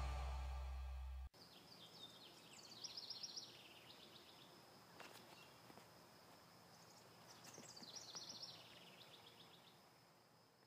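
Background music fading out and cutting off just over a second in. Then a very faint quiet bed with two short phrases of high, quickly repeated bird-like chirping, about five seconds apart.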